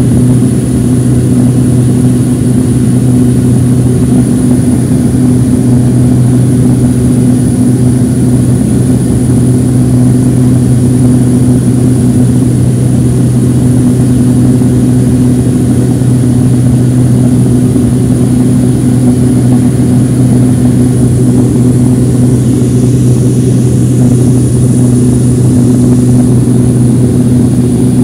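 Cabin noise of a propeller airliner in flight from its wing-mounted turboprop engine: a loud, steady drone with a deep hum and a thin, steady high whine.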